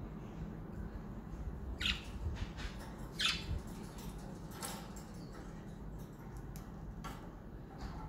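Pet budgerigars giving a few short calls, about four in all, the loudest about two and three seconds in, over a steady low background hum.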